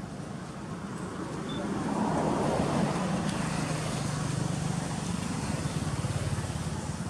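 A motor vehicle's engine running close by, growing louder about two seconds in and settling into a steady low hum.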